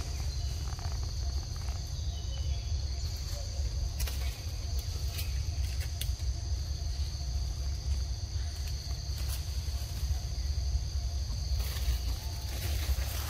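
A steady high-pitched drone of forest insects, with a low rumble underneath and a few brief clicks and rustles.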